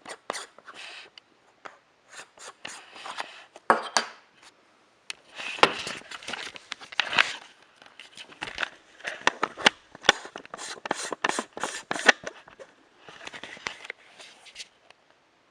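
Handling noise: repeated clicks and scraping of a camera lens being twisted and worked loose, in uneven clusters with short pauses between.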